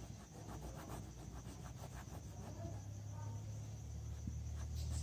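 Felt-tip whiteboard marker rubbing and tapping across a whiteboard as letters are written: faint scratchy strokes with small ticks. A low steady hum comes in about halfway and grows louder.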